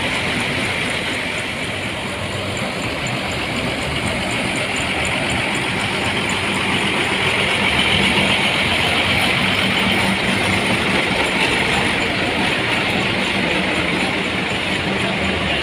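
Parked diesel coaches idling: a steady engine rumble under a constant hiss, growing slightly louder toward the middle.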